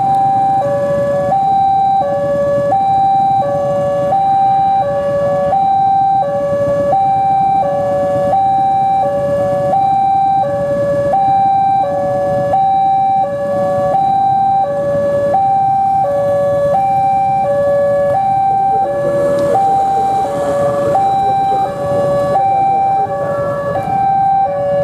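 Railway level-crossing warning alarm sounding a loud, repeating two-tone siren: a high and a low tone alternate evenly, about one pair a second.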